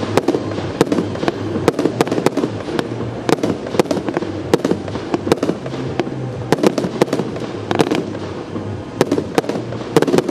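Fireworks display: aerial shells bursting in the sky in a rapid, irregular string of sharp bangs and pops, about three or four a second.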